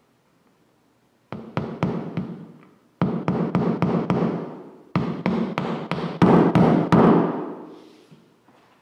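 Hammer driving a nail to tack a marmoleum flooring sample to a panelled wall: three runs of quick blows, about four a second, each run ringing on and dying away, the last run the loudest.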